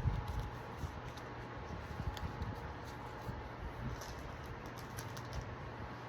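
Pokémon trading cards being handled: faint flicks and taps of cards with a few soft thumps, over a steady low room hum.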